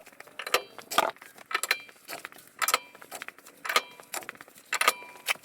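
Irregular metallic clanks and clinks, about a dozen sharp knocks with brief ringing, as clip-on tractor weights are handled and clipped into place.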